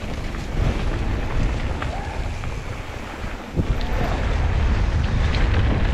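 Mountain bike rolling fast down dirt singletrack, with wind buffeting the camera microphone, tyre noise on the dirt and scattered clicks and rattles from the bike. The rush grows louder a little past halfway as the speed picks up.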